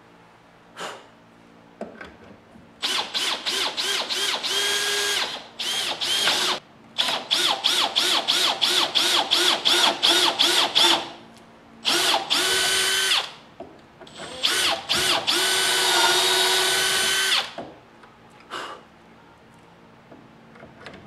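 Cordless drill boring dowel holes through a dowel jig into the edge of a southern yellow pine board, its motor whining in many quick trigger bursts, then in longer steady runs in the second half.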